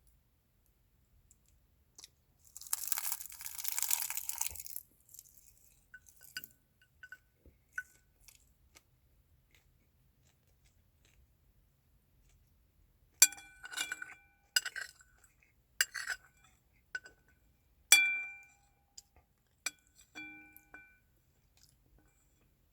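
Eating at a meal table: a couple of seconds of rustling crunch, then, in the second half, a run of sharp clinks of utensils against dishes, each ringing briefly at a clear pitch.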